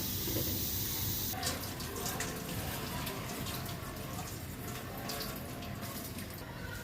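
Water running, as from a kitchen tap into a sink, with irregular splashes and small clicks from about a second and a half in.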